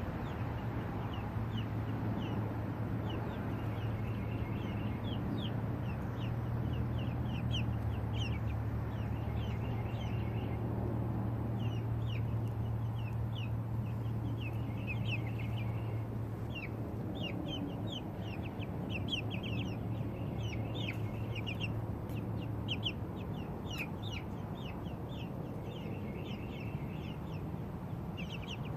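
Young chickens peeping and cheeping in quick runs of short, high, falling calls, over a steady low hum that weakens about seventeen seconds in.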